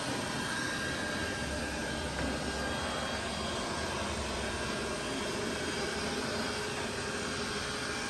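Robot vacuum cleaner running: a steady whirring of its suction fan and brushes, with a faint steady whine in it.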